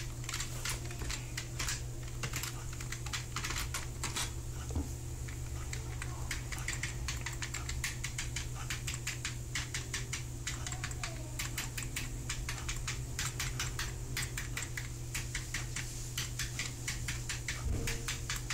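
Computer keyboard typing: a long, irregular run of quick key clicks over a steady low hum.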